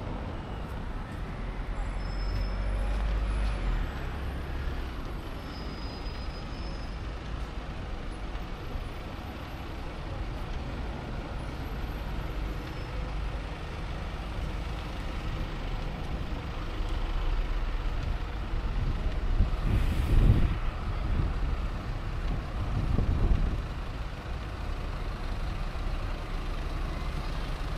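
Busy city road traffic: cars, taxis and double-decker buses passing close by with a steady low engine rumble. The rumble swells twice as heavier vehicles go by, and there is a brief loud hiss about two-thirds of the way through.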